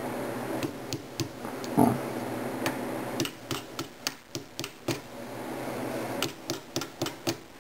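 Quick, light metal-on-metal taps on a pin punch as a pin is driven into an AK-pattern rifle's receiver while fitting an underfolder stock: a few scattered taps, then two runs of rapid taps, about five a second.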